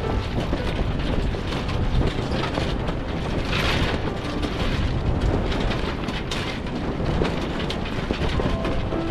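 Strong wind rushing over a sailboat, with a steady low rumble of wind and water and many irregular knocks and rattles. There is a louder hissing rush about three and a half seconds in.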